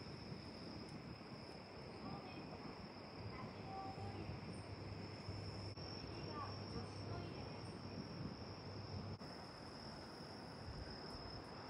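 Insects trilling: a faint, steady high-pitched drone that dips briefly twice.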